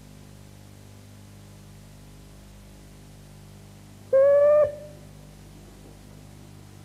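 A single short whistle blast, about half a second long and slightly rising in pitch, about four seconds in. It sounds over a steady low hum and hiss from the VHS dub.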